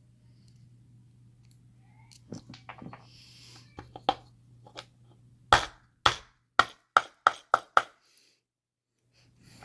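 Small metal clicks while a lock and its picking tools are handled, then a quick run of seven sharp taps, about three a second.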